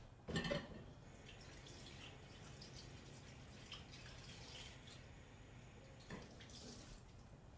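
A knock about half a second in, then faint dripping of liquid marinade and small handling noises of a plastic zip bag.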